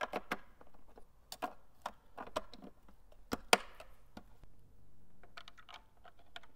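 Irregular plastic clicks and knocks as bulb holders are handled, pressed and twisted into the back of a plastic tail light housing.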